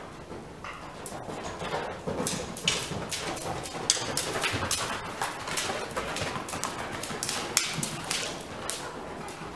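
Hoofbeats of a ridden Icelandic horse on the dirt footing of an indoor arena: an irregular run of soft thuds and clicks, about two a second.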